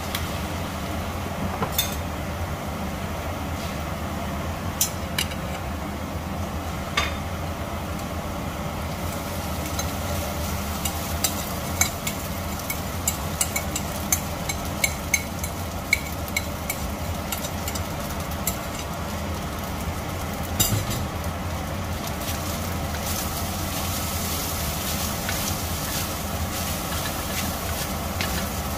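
Garlic and carrot sizzling in oil in a stainless steel wok, then rice tipped in and stir-fried, the spatula scraping and tapping on the metal in scattered sharp clicks, with a run of them about halfway through. The sizzle thickens near the end as the rice is tossed, over a steady low hum.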